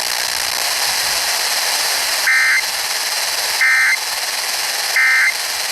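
Three short Emergency Alert System end-of-message data bursts (the two-tone 'NNNN' code), about a second apart, each a brief electronic burst. They signal that the alert has ended. Steady radio hiss runs under them.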